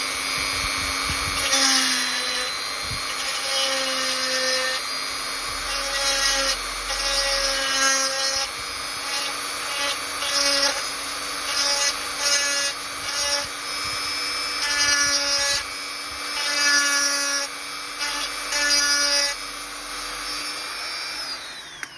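Small electric drill running steadily with a whine, its bit grinding against the edges of a drilled hole in a hard polystyrene doll torso in a series of short bursts as the hole is widened. The motor winds down just before the end.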